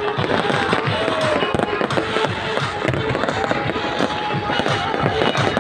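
Aerial fireworks shells bursting overhead in quick succession: a dense run of bangs with crackling from the glittering stars.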